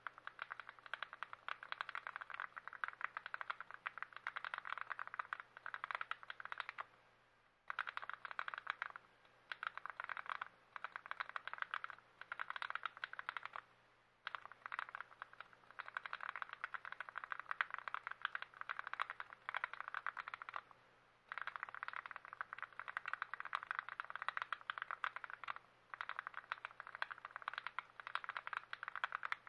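Rapid, dense clicking and rattling of small plastic mechanical-keyboard parts being worked by hand, in stretches of several seconds with short pauses between them.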